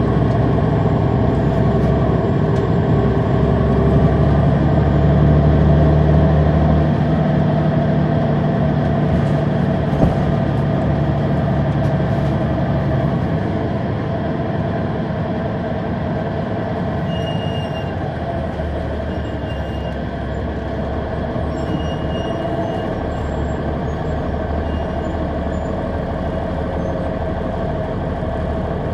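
Caterpillar C9 ACERT diesel engine of a 2003 Neoplan AN459 articulated bus running steadily. Its engine note is strongest in the first several seconds, then eases to a slightly lower, steadier level.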